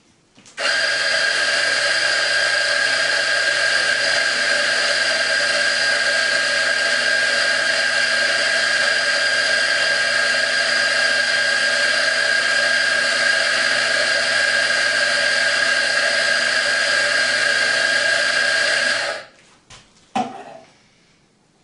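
Electric coffee grinder running steadily for about eighteen seconds, grinding an espresso dose, with a constant high whine over the grinding noise. It starts and stops abruptly, and a couple of light knocks follow.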